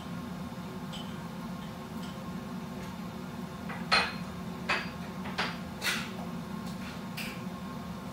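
Kitchenware clinking off to one side: five sharp metallic clinks over about three seconds, the first the loudest, above a steady low hum.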